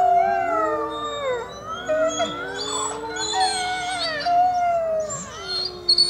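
A wolf pack howling together, several voices overlapping and gliding up and down in pitch.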